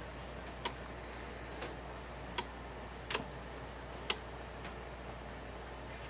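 Technics SL-D30 direct-drive turntable going through its automatic start as the tonearm swings over and lowers onto the spinning record. Six or so short sharp clicks come about once a second over a low steady hum.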